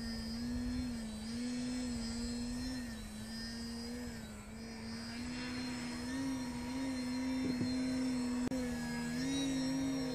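Radio-controlled aerobatic plane's motor and propeller droning overhead, its pitch dipping and rising gently with the throttle as the plane hangs nose-up on its propeller.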